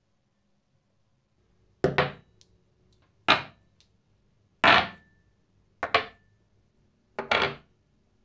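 Polished steel press parts, such as hex nuts, set down one at a time on a wooden workbench: five knocks of metal on wood, about one every second and a half, several of them doubled as the part settles.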